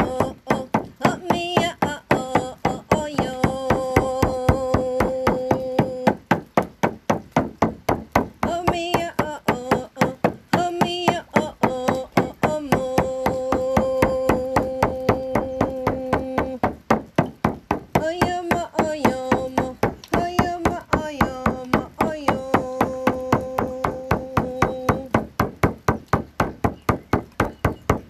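Shamanic frame drum beaten in a steady pulse of about three beats a second, with a woman's wordless chanting over it: three phrases, each ending in a long held note.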